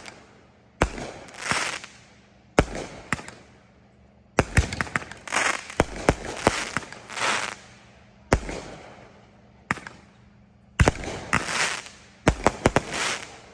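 Consumer fireworks going off in a show: repeated sharp bangs of shots and bursts, several followed by about a second of crackling, coming in clusters with short pauses between.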